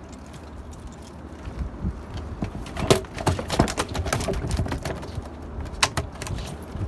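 Irregular sharp knocks and taps on a fishing boat, loudest about three seconds in and again near six seconds, over a low steady hum.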